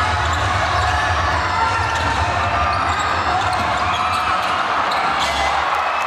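Basketball game court sound: a basketball bouncing on the court over a steady din of voices and a low hum.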